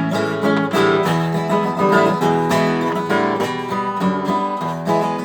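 Acoustic guitar strummed in a steady rhythm, a short instrumental passage with no singing.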